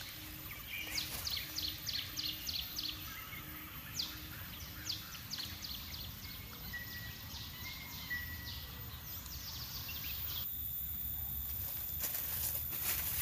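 Forest ambience: a run of quick, high, falling bird chirps in the first few seconds and a thin whistled note in the middle, over a steady low background noise. A few sharp knocks or rustles come near the end.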